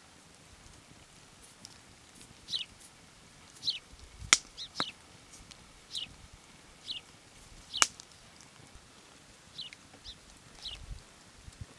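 Small birds chirping: short, high calls that slide downward, repeated irregularly about once a second, with two sharp clicks near the middle.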